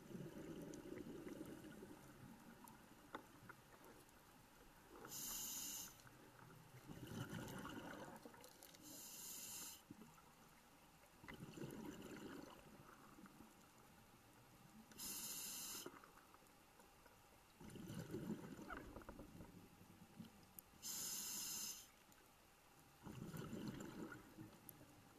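Scuba diver's regulator breathing underwater, heard faintly through the camera housing. About every six seconds there is a short, high hiss as air is drawn through the demand valve, then a longer, lower rush of exhaled bubbles.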